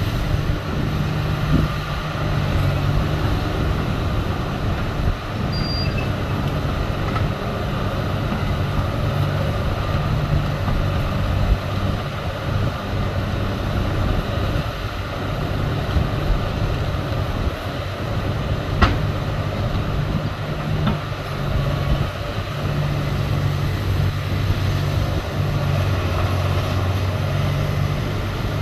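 Heavy diesel engine of an excavator running steadily, a deep even drone, with one brief sharp click about two-thirds of the way in.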